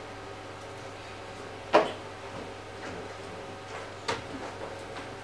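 Steady low room hum broken by a few short, sharp knocks or clicks: a louder one a little under two seconds in, another around four seconds, and fainter ticks between.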